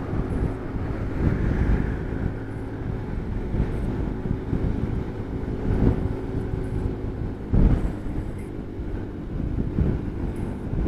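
Strong wind buffeting the microphone while riding a motor scooter, with the scooter's engine running underneath. One stronger gust about three-quarters of the way through.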